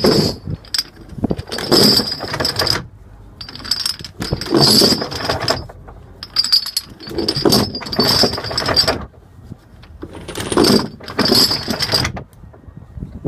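Heavy iron anchor chain clanking and rattling as it is paid out by hand over a ship's bow windlass, in about six spells of a second or two with short pauses between.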